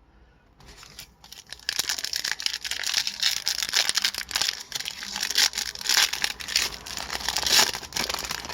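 Hockey card pack wrapper being torn open and crinkled: a few light handling clicks, then from about two seconds in a loud, dense crackling of the wrapper.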